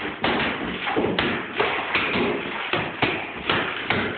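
Two hammers pounding a plaster-and-lath wall: a steady run of sharp blows, about two a second, as the plaster breaks away from the wooden lath.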